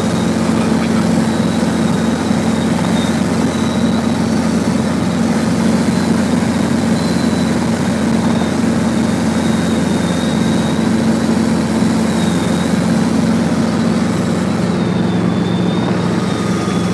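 Helicopter engine and rotor noise heard inside the cabin in flight: a steady loud drone with a thin high whine over it.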